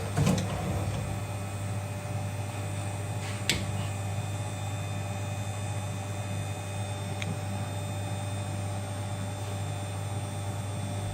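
Screen-printing machine running with a steady electric hum, with sharp mechanical clacks shortly after the start and about three and a half seconds in, and a faint tick later.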